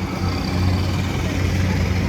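A machine running with a steady low hum under a noisy background.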